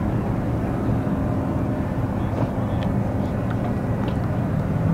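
Steady low drone of a running engine or motor, with a faint hum.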